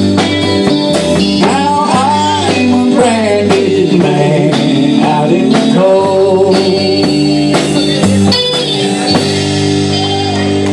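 Live country band playing: electric guitar, electric bass and drum kit, with a sung vocal line over them.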